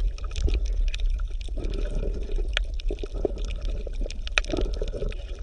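Water bubbling and gurgling, with many small irregular pops over a steady low hum.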